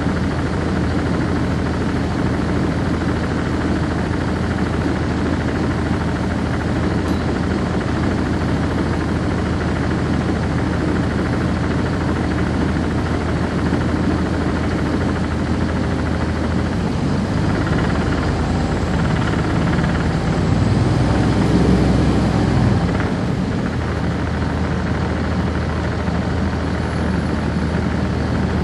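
Cummins ISC inline-six diesel engine of a 1999 NovaBus RTS transit bus, heard from inside the bus, running with a steady drone. About two-thirds of the way through, the engine note shifts and grows louder for a few seconds, then settles back to the steady drone.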